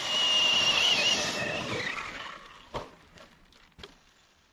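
Radio-controlled model truck driving over sand and gravel: a high, slightly wavering electric-motor whine with tyre and gravel noise, fading away after about two seconds. Two faint knocks follow.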